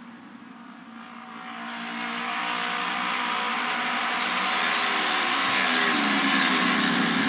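A pack of Japanese autorace motorcycles with 600cc two-cylinder engines running laps on the oval at speed. The engines get louder over the first couple of seconds as the pack comes closer, and several engine notes bend and slide down in pitch as the bikes go by.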